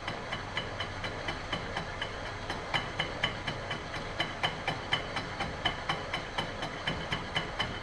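Antique Selig Sonnenthal metal lathe running on a replacement half-horsepower electric motor: a steady hum with a regular ticking rattle about four or five times a second.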